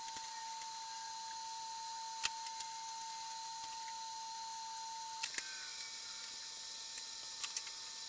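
TIG welding on the car body's front roof flange: a faint steady whine over a hiss that cuts off with a click about five seconds in, with a few sharp ticks.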